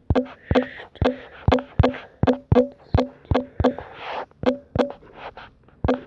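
Typing a search: a run of sharp taps, about two a second, each with a short low ring, and a brief hiss about four seconds in.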